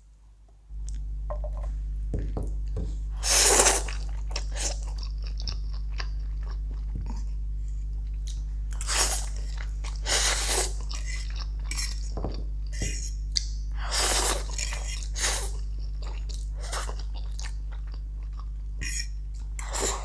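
A person eating jajangmyeon black-bean noodles close to the microphone: wet chewing and several louder slurping bursts, the loudest about three and a half seconds in. Under it runs a steady low hum that starts about a second in.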